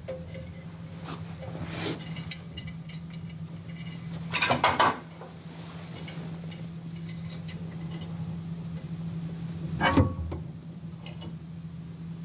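Thin metal wires scraping and clicking inside a small electronic safe's door as they are worked through a drilled hole to trip the lock mechanism, over a steady low hum. A louder rustling handling noise comes about four and a half seconds in, and a sharp knock about ten seconds in.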